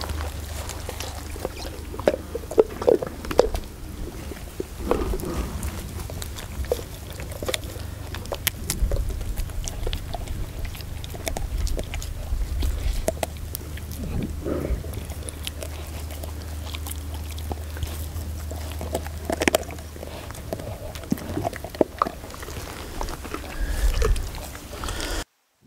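Large dog gnawing on a chunk of raw pork and bone, with irregular crunching, chewing and wet mouthing sounds.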